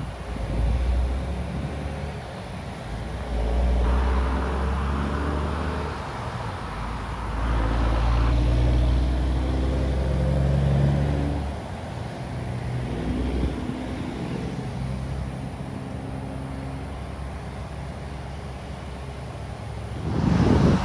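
Distant jet airliner taking off: a low engine rumble that swells and fades a few times. Near the end, louder wind buffets the microphone.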